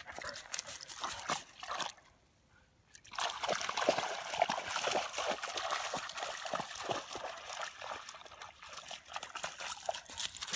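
Black Labrador puppy wading and splashing through shallow lake water, his paws churning the water in a steady run of small splashes. There is a short lull about two seconds in before the splashing picks up again.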